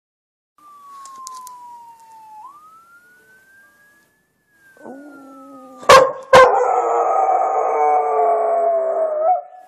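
A faint siren wails with its pitch sliding down and up, then a dog howls along with it in one long howl from about five seconds in. Two sharp knocks come just as the howl gets loud.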